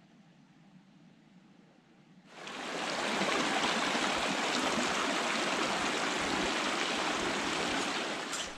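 Small mountain creek running over rocks, a steady rush of water that comes in suddenly about two seconds in and cuts off near the end.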